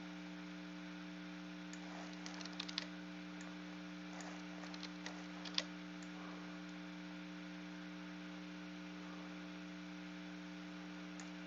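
Steady electrical mains hum, with scattered faint clicks of a computer keyboard and mouse about two to six seconds in.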